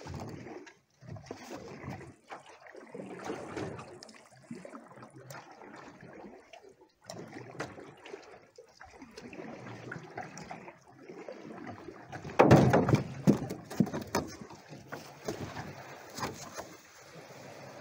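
Paddle strokes pulling a small boat through water, a swish about every one and a half to two seconds. About twelve seconds in comes a louder run of knocks and scrapes as the boat comes to shore.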